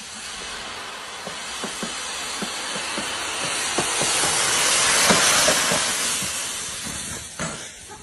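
Dry fallen leaves rustling as a mountain bike and rider plough down through a deep layer of them. A loud, continuous rustling hiss builds to a peak about five seconds in and then fades, with scattered light knocks and clicks throughout and a sharper knock near the end.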